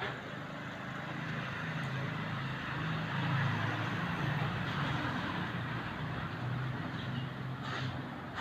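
Road traffic: a motor vehicle's engine running as it passes close by, loudest about halfway through, over a steady traffic hiss.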